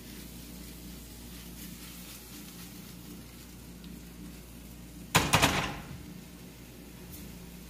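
Chopped mushrooms sizzling faintly in a frying pan over a gas burner. About five seconds in, the pan is set down on the stove's metal grate with a brief loud clatter of a few quick knocks.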